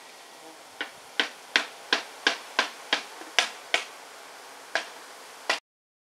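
A run of about eleven sharp, separate clicks over a faint hiss, about three a second at first, then two more spaced further apart; the sound cuts off suddenly near the end.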